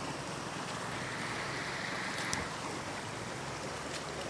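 Shallow floodwater running and sloshing steadily, with a brief swell of splashing near the middle.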